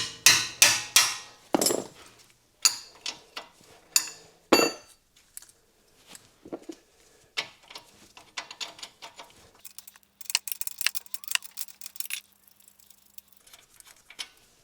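Hammer blows on the steel suspension parts of a car, knocking the ball joint loose: about nine sharp, ringing strikes in the first five seconds. Then lighter metal clinks, and a dense rattle of metal on metal a few seconds from the end.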